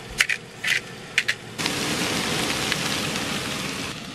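A few quick rattling shakes of seasoning over the pan in the first second and a half, then potatoes and onions sizzling in a frying pan on a propane camp stove. The sizzle starts suddenly and cuts off near the end.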